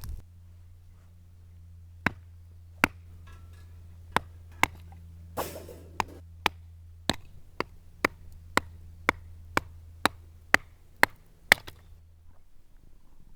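A series of about twenty sharp knocks, spaced irregularly at first and then coming about twice a second, over a steady low hum.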